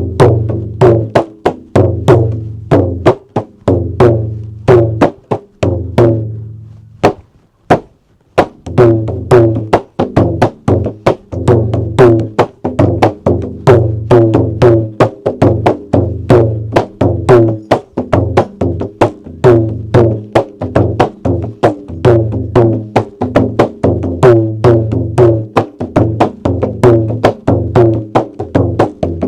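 Bodo kham, a large wooden drum with goat-skin and buffalo-leather heads, played in a quick, steady rhythm of deep ringing strokes. The playing tails off about six seconds in, falls nearly silent for about two seconds, then picks up again and runs on.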